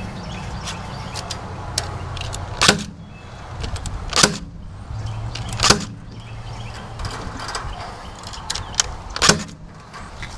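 Staple gun firing into wood four times, sharp snaps a second or two apart, with lighter clicks and rattles of wire handling between them.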